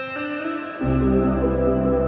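Ambient background music: sustained tones with an echoing plucked guitar, joined by a deep bass drone under a second in.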